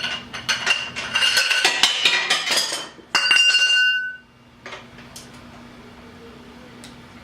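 Steel tools clanking and clinking against each other and the engine: a rapid run of metallic knocks, then a brief loud ringing metallic note about three seconds in. After that it falls quieter, with a few isolated clicks.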